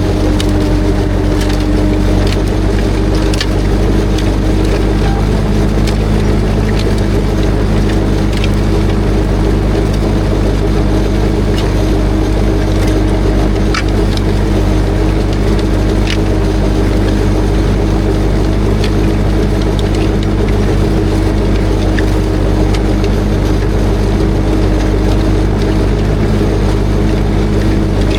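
Ursus C-360's four-cylinder diesel engine running steadily under load while pulling a disc harrow, with a few short sharp clicks or knocks from the machinery.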